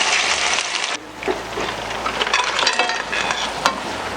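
Food sizzling in a pan, with scattered clinks and knocks of utensils against cookware; the sound changes abruptly about a second in.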